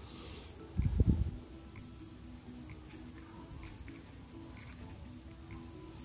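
Crickets chirping steadily in the background, with one loud low thump about a second in.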